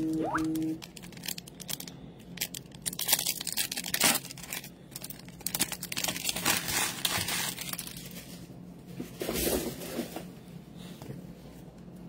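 Trading-card pack wrapper crinkling and tearing open, with cards being handled and shuffled in irregular crackling strokes.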